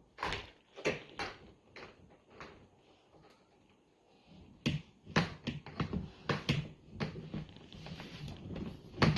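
Sharp taps and clicks of Play-Doh toys and tools being handled on a hard surface. There are a few scattered knocks at first, then a busier run of clicks and knocks from about five seconds in.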